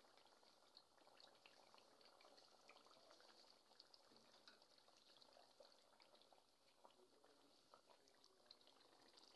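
Faint sizzling and bubbling of chicken pieces frying in oil and masala in a karahi, heard as soft scattered crackles.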